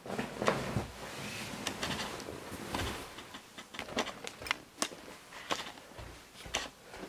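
A hand rustling a duvet, then scattered light clicks and knocks from handling and moving about.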